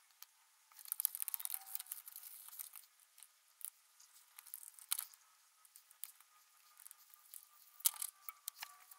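A coil spring being scrubbed with a plastic toothbrush over soapy water: a dense run of scratchy brushing strokes about a second in, then scattered small clicks and wet handling sounds. The sound is faint.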